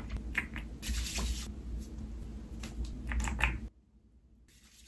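Clicks, scrapes and rustles of a skincare bottle being handled and cream dispensed onto fingertips, stopping abruptly about three and a half seconds in.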